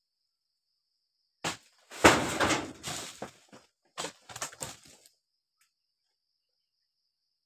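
Work with a dodos palm-harvesting chisel at the base of an oil palm: a sharp knock about one and a half seconds in, then a loud rustling crash lasting about a second, then several smaller knocks and rustles. A faint steady high-pitched whine sits underneath.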